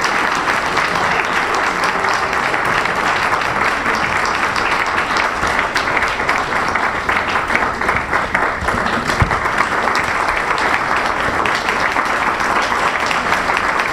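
Audience applauding steadily: a dense, even mass of hand claps.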